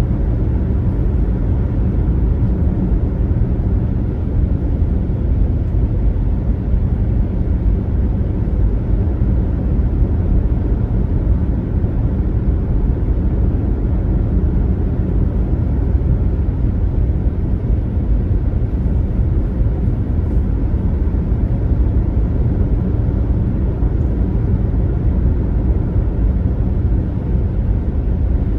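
Car driving at road speed: a steady low rumble of tyres and engine that does not change.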